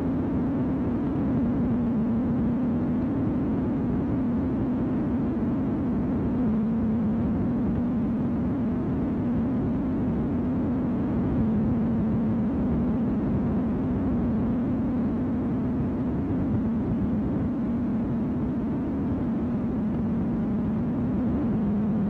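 A steady low hum that wavers slightly in pitch, with a hiss of noise over it and no breaks.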